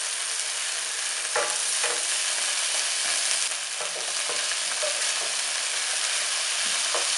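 Whole spices, garlic cloves and green chillies sizzling steadily in hot oil in a nonstick pan, with a wooden spatula stirring and knocking against the pan now and then.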